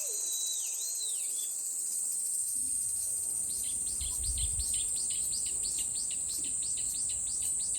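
A steady high-pitched drone of summer insects, over which a bird whistles two swooping notes at the start. From about three and a half seconds in, a bird gives a fast run of short downward-sweeping chirps, about five a second, to the end, with a brief low rumble under it about four seconds in.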